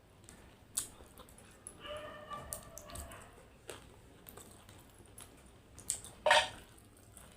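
A domestic animal's whining call, about a second long, about two seconds in, and a short, loud cry near the end, over small clicks of someone eating.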